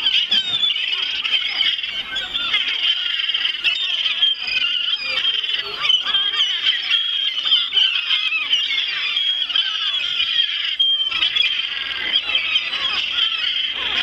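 A flock of herring gulls calling over one another without a break, a dense clamour of high squealing cries as they squabble over scraps of food.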